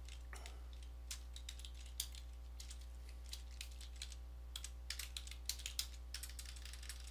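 Typing on a computer keyboard: irregular keystrokes, sparse at first, then a quicker run of keys from about halfway through, over a steady low hum.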